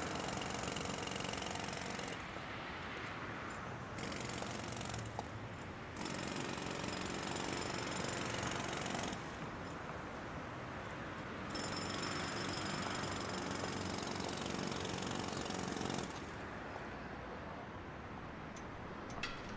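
Street noise dominated by a continuous rapid mechanical rattle, its level stepping up and down abruptly every few seconds.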